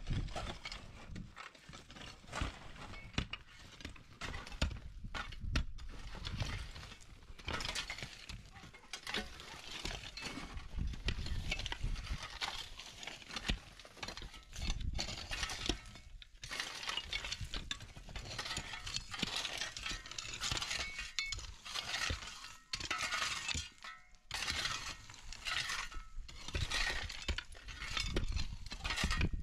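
Picks and shovels digging into dry, stony ground: repeated, irregular clinks of steel striking rock and scrapes of shovel blades through gravel and loose earth.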